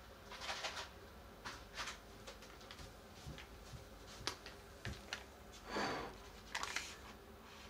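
A few small clicks and taps, then the rustle and crinkle of a plastic sauce pouch being picked up and handled, loudest about six seconds in.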